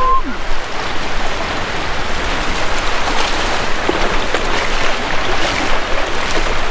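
Steady rush of shallow surf washing on the beach, with wind on the microphone and a hooked shark splashing in the shallows.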